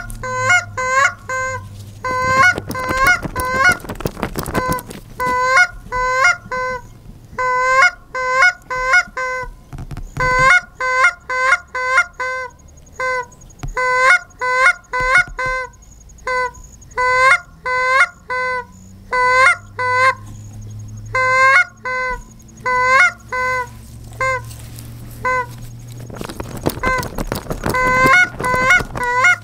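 Geese honking: a long run of loud, repeated honks, about two or three a second, broken by short pauses.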